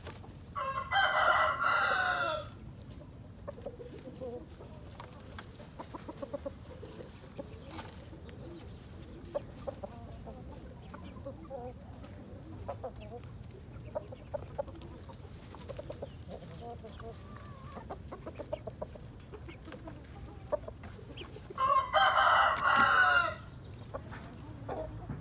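A rooster crows twice, each crow nearly two seconds long: once about a second in and again about twenty seconds later. Between the crows, softer chicken clucks and small scratching clicks.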